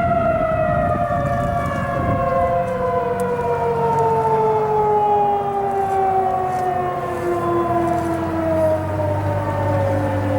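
Several electromechanical tornado sirens, including Federal Signal 2001-SRNs, winding down together at the end of a test, their tones falling slowly and steadily in pitch.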